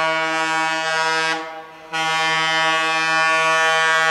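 Diesel locomotive air horn sounding one steady, low note in long blasts: one blast cuts off about a second and a half in, and after a short gap a second long blast begins and holds on.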